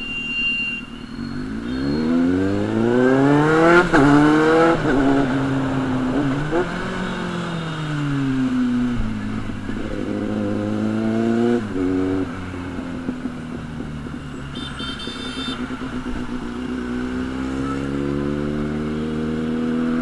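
Kawasaki Z800's inline-four engine with a loud exhaust, accelerating through the gears in traffic: the pitch climbs about two seconds in and drops sharply near four seconds, rises and falls again around ten to twelve seconds, then runs steadily before climbing once more near the end.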